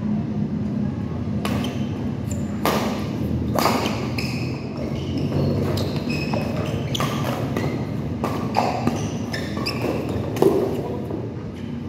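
Badminton doubles rally: repeated sharp strikes of rackets on the shuttlecock, with short squeaks of court shoes on the floor, over a steady low hum in the hall.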